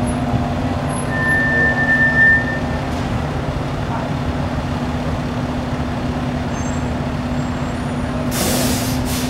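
Fire truck's diesel engine idling with a steady drone. A short high beep sounds about a second in, and a loud burst of air-brake hiss comes near the end.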